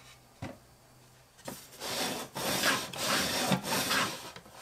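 Wooden tambour lid of a bread bin being slid back and forth in its grooves: several wooden rubbing strokes in a row, after a light knock about half a second in.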